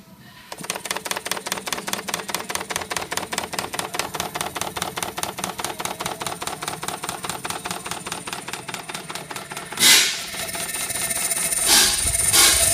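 Engine of a 7.5-inch gauge live-steam model Shay locomotive running on a test stand. Its exhaust beats rapidly and evenly through the smokestack, starting about half a second in, with a few louder bursts of noise near the end.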